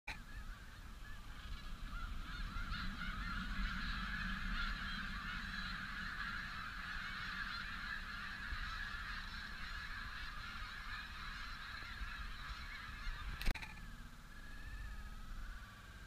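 A large flock of snow geese honking in a dense, continuous chorus of many birds calling at once. A sharp click comes about thirteen and a half seconds in, after which the calling is much fainter.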